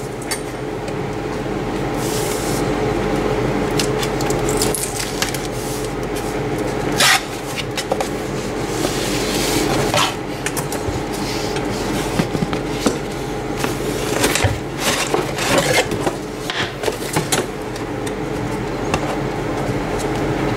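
A cardboard product box and its packaging being opened and handled by hand: irregular rubbing, scraping and sharp taps. A steady hum runs underneath.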